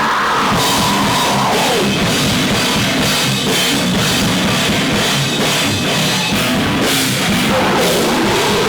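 Loud rock music with a fast, pounding drum kit beat, starting and stopping abruptly.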